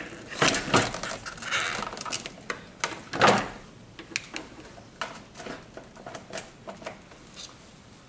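Handling noises: a string of small clicks and knocks, with one louder scraping knock about three seconds in.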